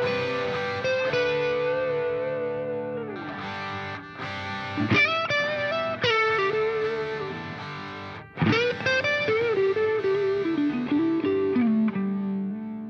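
Background instrumental music led by guitar: a melodic line of long held notes with a slight waver, sliding up into new notes twice.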